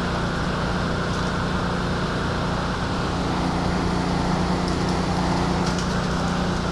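Steam-engine-driven sawmill running steadily between cuts: a constant mechanical drone with a steady low hum from the belt-driven machinery and spinning saw.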